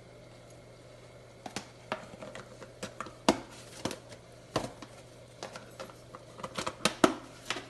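Spoon clinking and knocking against a cooking pot and seasoning containers, a string of irregular sharp clicks starting about a second and a half in, over a low steady hum.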